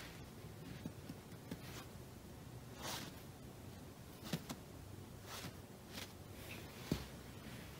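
Faint, scattered rustles and light taps of a feathered cat wand toy being swished and brushed over a fabric floor cushion, with a longer scrape about three seconds in and a soft knock near the end.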